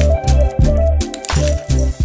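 Background music with a driving beat of deep, repeated bass notes and a melody line above.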